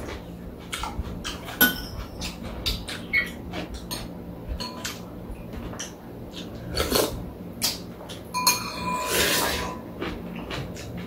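Metal spoons and chopsticks clinking and scraping against soup bowls while eating, in sharp, irregular clicks, with a longer rushing sound about eight and a half seconds in.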